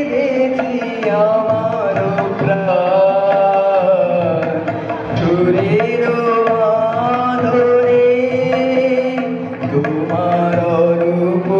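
A boy singing a Bengali song into a microphone with long, held and gliding notes, accompanied by a harmonium giving a steady low drone underneath.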